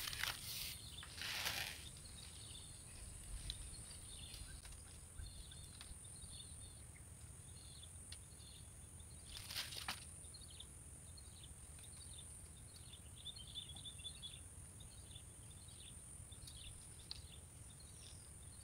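Faint open-field ambience: a low wind rumble on the microphone with scattered short, high chirps of small creatures and a thin steady high hiss. A brief rustle or knock sounds about nine and a half seconds in.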